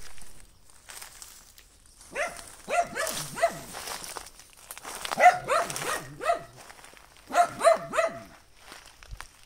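A dog barking in three runs of several short barks each.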